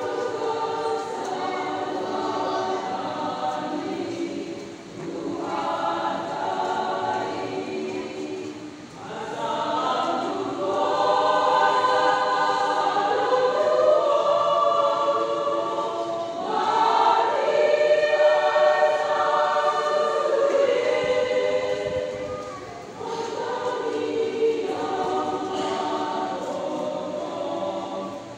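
Church choir of men and women singing together in long sustained phrases, with brief breaks between phrases about 5, 9 and 22 seconds in.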